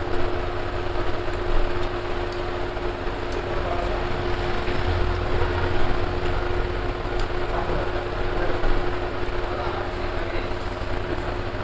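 A steady mechanical hum with a low rumble underneath.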